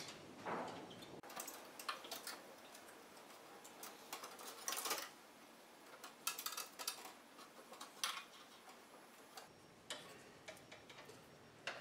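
Faint, scattered clicks and scrapes of stiff ground wires being bent and tucked behind the hot wires inside a metal breaker panel.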